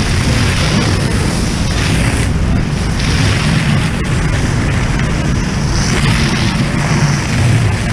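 Fire hose nozzle flowing water: a loud, steady rushing, with a higher hiss that swells and fades several times.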